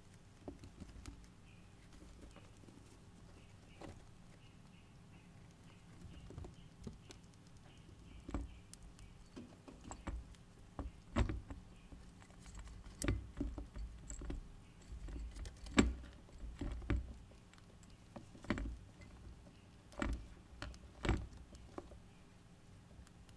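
Syrian hamster feeding at a lettuce leaf in wood-shavings bedding: irregular crisp crunches, nibbles and rustles. They are sparse at first and come thick and fast from about a third of the way in.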